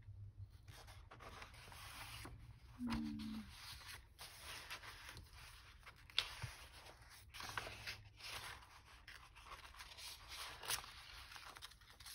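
Sheets of paper rustling, sliding and scraping in irregular strokes as they are sorted through by hand. About three seconds in there is a brief hummed murmur.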